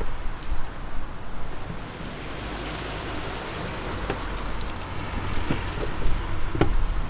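Power drill with a step drill bit cutting into the van's sheet-metal body side, a steady grinding noise with a few sharp clicks, over a low rumble.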